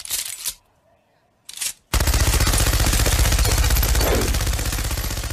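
Machine-gun sound effect: two short noisy bursts, then from about two seconds in a long run of rapid automatic fire, many shots a second at an even rate.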